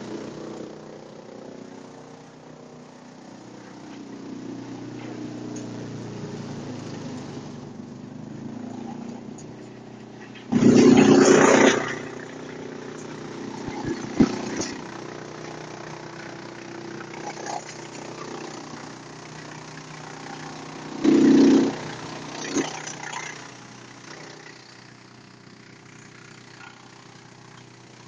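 Waste-wood chipper machine running steadily, with two loud, noisy bursts, about a third of the way in and again about three quarters in, as fed wood and fronds are chipped.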